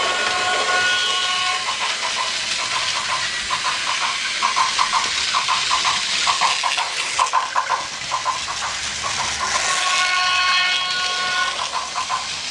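Battery-powered Plarail toy train running on its plastic track: a steady whirring hiss with rapid rhythmic clicking. Twice, near the start and about ten seconds in, a held steady tone sounds over it for a second or so.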